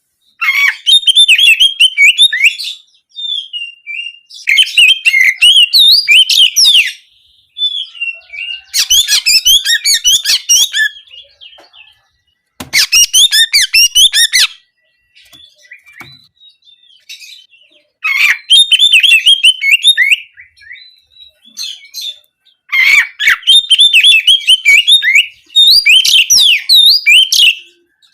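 Oriental magpie-robin (kacer) singing loud, fast outbursts of high twittering and trilling notes in a canary-like 'nembak kenari' style. There are about six outbursts of two to three seconds each, with short pauses between them.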